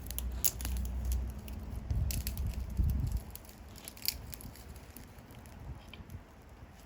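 Wood fire crackling, with scattered sharp pops and snaps over a low rumble that dies away about three seconds in.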